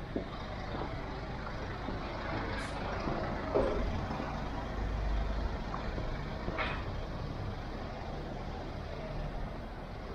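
Street traffic: a large road vehicle's engine running close by with a low rumble that swells in the middle, and a brief high squeak about two thirds of the way through.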